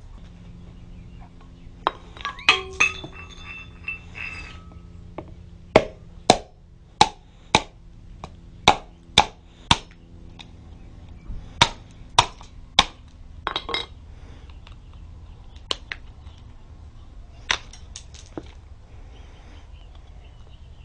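Hammer striking a coconut shell on a concrete block to crack it open: a few ringing clinks at first, then a run of about a dozen sharp knocks roughly half a second apart, and a few scattered knocks near the end.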